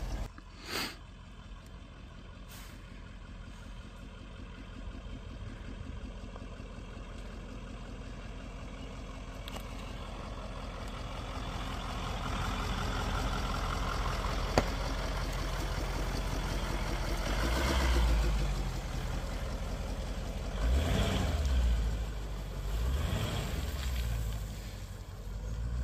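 Mercedes-Benz G-Class diesel SUV driving slowly along a muddy track, its engine getting louder as it comes closer. It then revs up and down several times as it works through the mud. A single sharp click sounds about halfway through.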